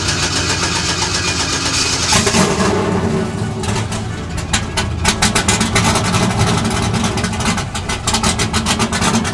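A pickup's LS V8 cranking over and catching about two seconds in, then running with a rough, rapid, uneven pulse. It is hard to start and still cold, needing to warm up.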